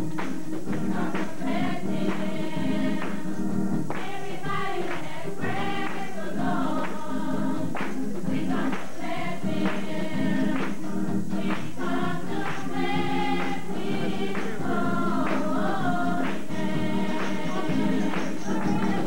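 Youth gospel choir singing a praise song together, with hand claps keeping the beat.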